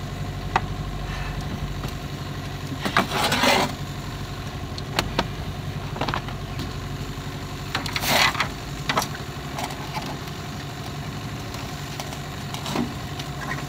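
Boat motor idling steadily, with a few short rustling or splashing noises about three and eight seconds in and scattered light clicks.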